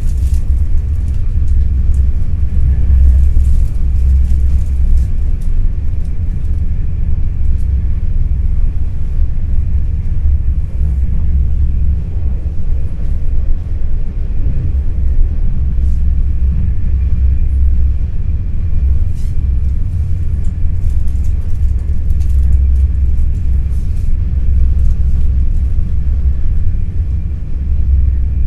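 Steady low rumble of an NS Intercity New Generation (Alstom Coradia Stream) electric train in motion, heard from inside the carriage, with a faint steady high whine above it.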